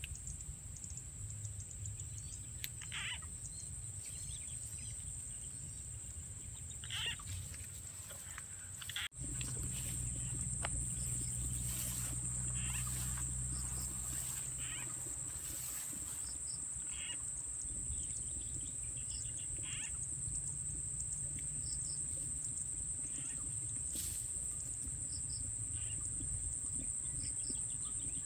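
Rice-field ambience: a steady high insect drone with scattered short bird chirps, over low wind rumble on the microphone. About nine seconds in the sound cuts briefly and the insect drone comes back louder.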